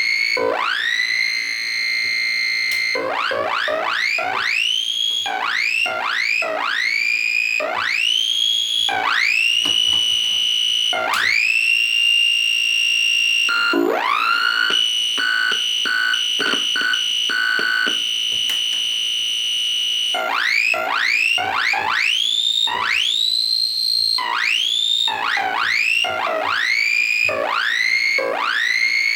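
1979 Yamaha CS-20M analog monophonic synthesizer playing a string of single notes. Each note swoops up in pitch and then settles into a held, bright tone. About halfway through, one note is chopped into quick repeated stabs.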